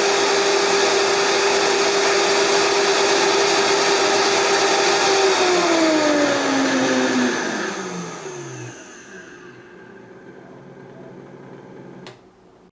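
Electric blender motor running at high speed with a steady whine. About five seconds in it is switched off and spins down, its pitch falling over the next three seconds. A single click comes near the end.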